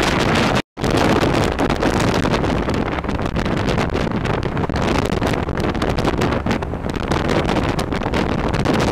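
Wind rushing and buffeting over the microphone of a camera filming from a moving vehicle, a steady fluttering noise. The sound cuts out completely for a split second near the start.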